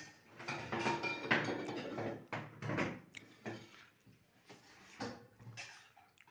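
Metal serving spoon scooping and scraping cooked rice in an aluminium pot, with a quick run of clinks and scrapes for the first few seconds, then a few single knocks.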